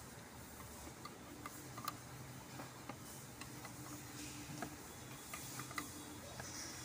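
Light, irregular metallic clicks of a screwdriver working the screws of a Mercedes automatic transmission valve body, over a faint steady low hum.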